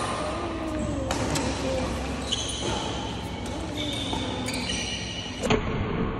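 Background music with a singing voice and changing held synth tones. Two sharp smacks cut through it, about a second in and near the end.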